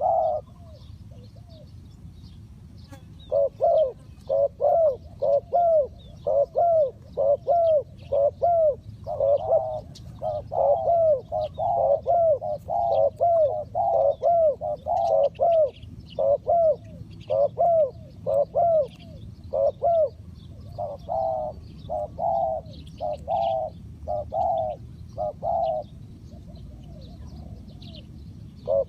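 Spotted doves cooing in a long run of repeated coo phrases, starting about three seconds in and breaking off a few seconds before the end.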